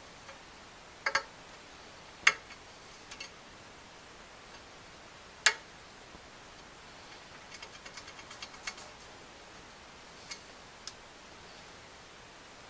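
Sharp metallic clicks of steel needle rollers and a screwdriver tip against the needle bearing race in a Polaris Outlaw rear A-arm as the needles are worked into place. Single clicks come every second or two, the loudest about two and five seconds in, then a quick run of small ticks around eight seconds in and two more near the end.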